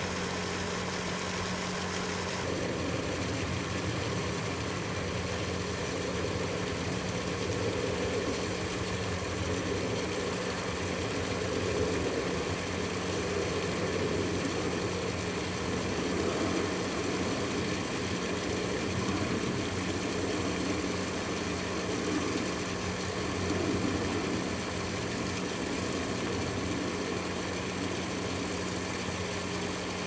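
Steady low mechanical hum, like an engine running at idle, with a constant low tone under it.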